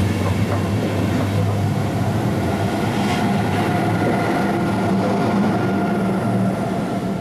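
InterCity train of passenger coaches with an electric locomotive at the rear running through a station at speed: steady rolling noise of steel wheels on rail with a constant low hum. The locomotive passes about four seconds in.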